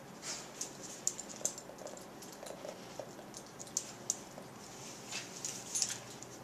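A dog's jaws clicking together, teeth knocking in an irregular run of sharp clicks, some louder than others.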